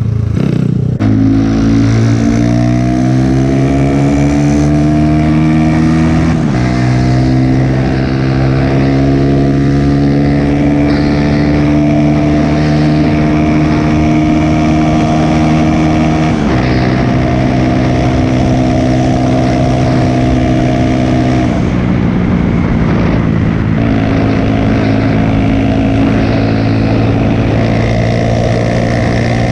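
Single-cylinder motorcycle, a 150 cc bored out with a 190 cc kit, accelerating hard through the gears. The engine note climbs in each gear and drops at each upshift, four times, then holds a steady high cruise near the end, over wind rush.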